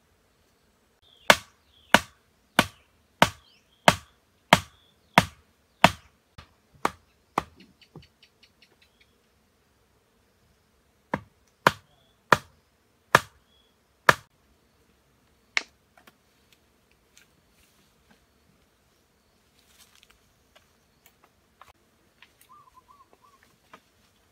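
Hard, sharp blows on bamboo at an even pace of about three every two seconds. A run of about eleven fades toward its end, then after a pause come five more and a single last one. Faint bird chirps sound between the blows, and a short warbling bird call comes near the end.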